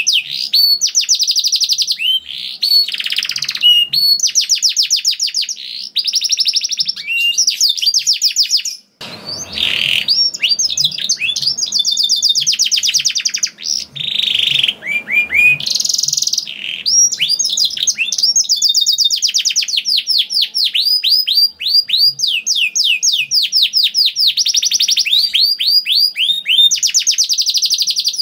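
Domestic canary singing a long, vigorous song of rapid trills, each phrase a fast run of repeated notes, with a brief pause about nine seconds in.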